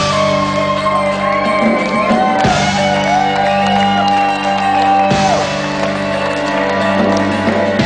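Live mandolin playing over sustained backing chords in a large hall, with audience members whooping and shouting along.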